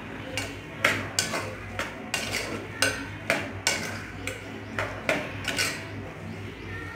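A metal spoon stirs carrot halwa in an aluminium pressure cooker, scraping and clinking against the pot's base and sides in irregular strokes, about two a second. The sugar has just gone in and is being stirred through.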